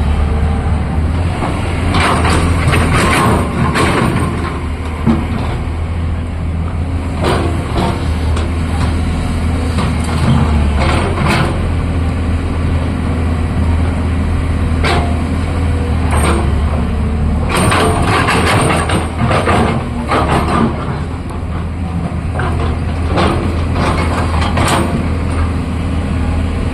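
Excavator's diesel engine running steadily with a deep drone, with brief bursts of noise every few seconds.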